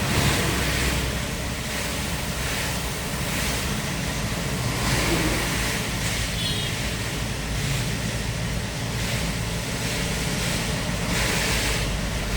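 Light truck's engine running steadily while driving in rain, with a hiss of rain and road spray that swells and fades every second or so.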